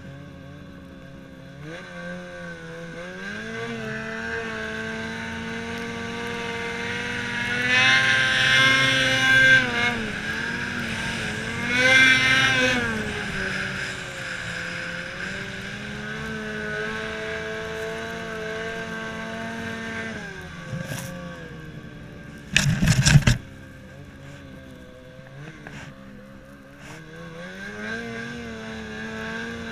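Snowmobile engine revving up and down while riding through deep powder snow, its pitch climbing to two strong peaks and easing off between. About two-thirds of the way through, a short, loud blast of noise cuts in.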